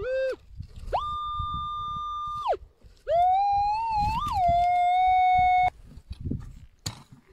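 Minelab Equinox metal detector beeping target tones as its coil sweeps the ground. A short tone comes at the start, then a steady higher tone of about a second and a half, then a longer lower tone that wavers and briefly jumps higher. The target is a small scrap of sheet metal, trash that throws off the detector's numbers and beep.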